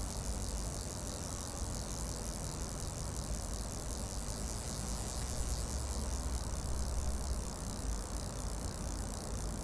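Outdoor ambience of riding a bicycle through a neighborhood: a steady low rumble under a steady high hiss.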